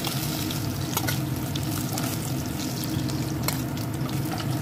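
Fish steaks frying in hot oil with a steady crackling sizzle, and a few sharp clicks of a steel spatula against the pan as the pieces are lifted out.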